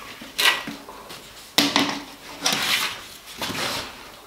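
Flexible plastic toilet pan connector being handled with gloved hands, wet with washing-up liquid: four short bursts of plastic rubbing and crinkling.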